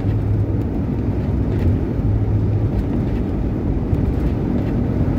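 Cabin drone of a 1981 Ford Mustang's 200 cubic-inch inline six cruising at a steady highway speed, with steady tyre and road noise underneath.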